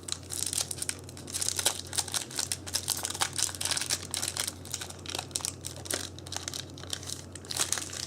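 Yu-Gi-Oh booster pack foil wrappers crinkling and tearing in irregular bursts as packs are handled and ripped open.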